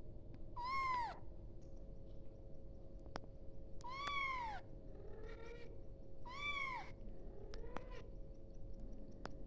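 Young kitten meowing for its mother: three clear, high meows about three seconds apart, each a short call that rises slightly and then falls away, with fainter, lower mews in between.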